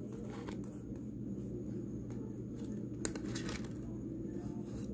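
Tarot cards being handled and laid out on a cloth-covered table, with one sharp click about three seconds in, over a steady low hum.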